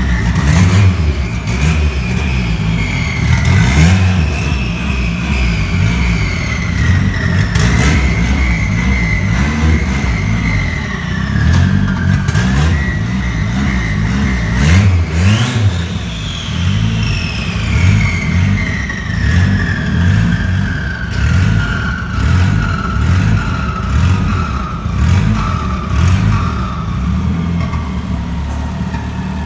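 Turbocharged VW AP four-cylinder engine in a Passat running with a deep, uneven exhaust rumble at low speed, while the turbo's whistle wanders up and down in pitch, then falls steadily through the second half. A few sharp cracks sound over it.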